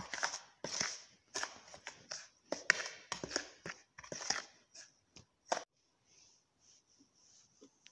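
A plastic spoon scooping and stirring flour in a plastic tray: a run of short, irregular scrapes and knocks that stop about two-thirds of the way through.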